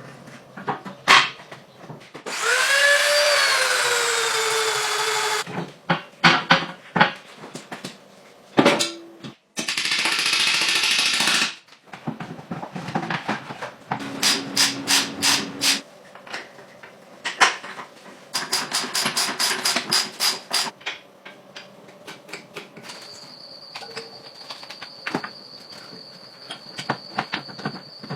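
A string of workshop tool sounds: a small electric power tool spins up and winds down, a second short loud burst of a tool follows, then runs of quick metallic clicks and taps, and near the end a steady high thin whine.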